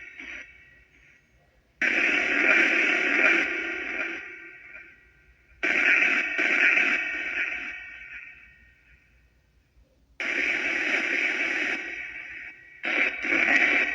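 Necrophonic spirit box app playing white noise through echo and reverb. Four bursts start abruptly, and each dies away over a couple of seconds in a long reverberant tail.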